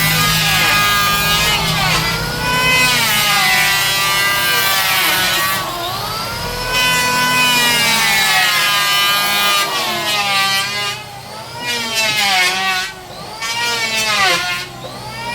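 Woodworking power tool's electric motor whining, its pitch repeatedly rising and falling as it speeds up and slows down under load.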